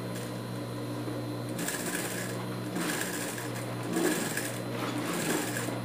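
Industrial sewing machine stitching round green fabric and felt pieces in several short runs, its motor humming steadily between runs.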